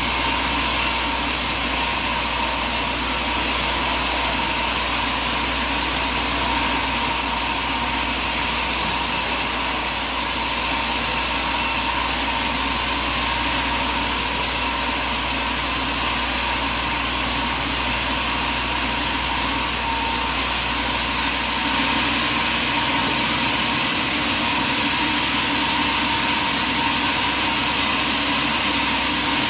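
Sawmill running steadily, its engine and saw making a continuous loud mechanical noise with a steady whine; the deepest hum drops away a little past twenty seconds in.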